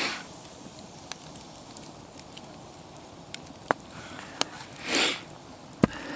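Wood campfire crackling, with scattered sharp pops. There is a short rushing noise about five seconds in, and a single low knock just before the end.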